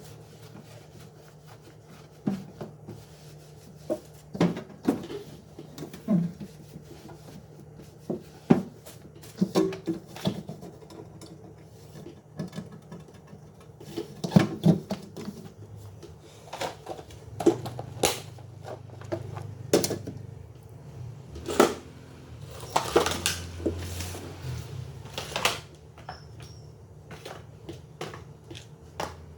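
Objects being handled and set down: irregular knocks, clicks and clatter, with a short stretch of rustling about two-thirds through, over a steady low hum.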